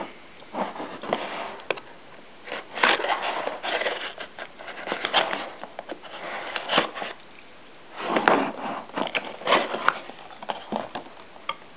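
A SOG Tac Auto knife blade slitting the packing tape on a cardboard shipping box, in a run of irregular scraping and ripping strokes. Near the end the cardboard flaps are pulled open.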